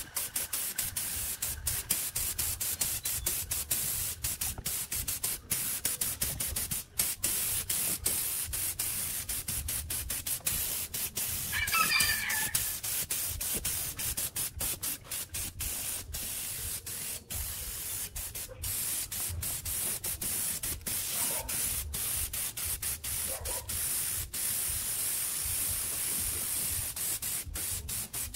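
Gravity-feed paint spray gun hissing as it sprays paint, broken into many short bursts with brief gaps. A short bird call about twelve seconds in.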